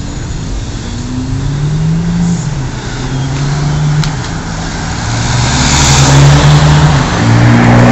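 Ferrari 599 GTB Fiorano's V12 accelerating through its gears as it approaches, the pitch climbing and dropping back at each upshift and growing louder, over city traffic.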